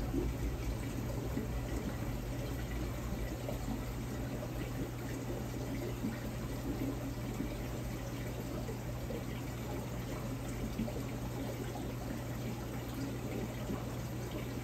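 Steady rush and trickle of water circulating in a large overflow aquarium, with a steady low hum underneath.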